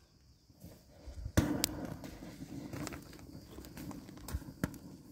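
Kindling fire of dry twigs, pine needles and paper catching in a metal brazier: a sharp crack about a second and a half in, then a steady low rush of burning with scattered crackles and pops.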